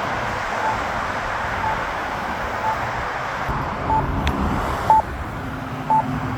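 Accessible pedestrian signal push button sounding its locator tone: short high beeps about once a second, which let blind pedestrians find the button while the signal shows wait. Wind noise on the microphone and road traffic run underneath.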